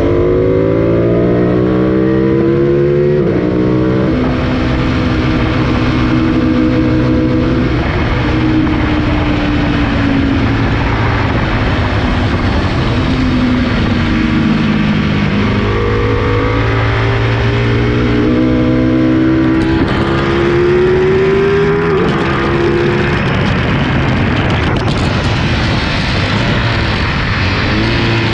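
Sport motorcycle engine at track speed, heard from a camera on the fairing over heavy wind rush. Revs climb through the gears with a step down at each upshift, drop away under braking, then build again. Near the end come sharp knocks and rattles as the camera works loose from its mount.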